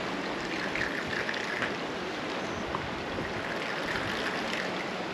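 Sea waves washing on the shore: a steady rushing of water.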